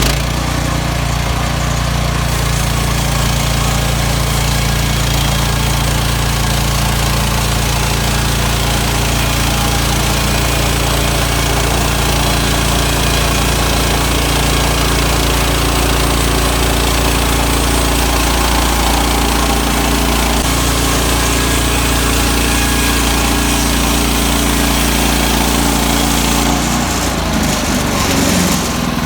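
An engine running steadily at a constant speed, its note changing briefly near the end.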